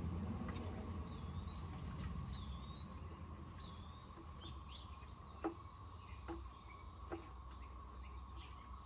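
Quiet outdoor background: a bird gives a string of short, curving chirps, over a steady insect-like drone. A few faint knocks or drips come in the second half.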